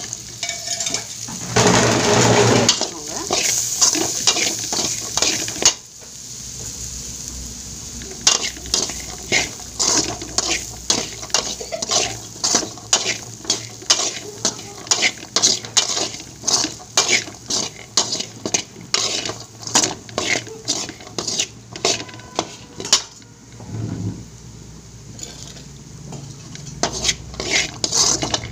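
A perforated metal spatula scraping and tossing dry-fried beans with curry leaves in an aluminium kadai, in quick repeated strokes of about two a second. A continuous frying sizzle fills the first several seconds.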